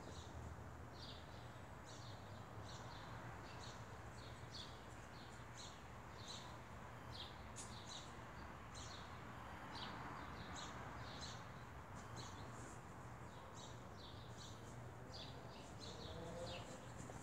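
Bird chirping outdoors: short high calls repeated over and over, about one or two a second, over a faint steady low hum.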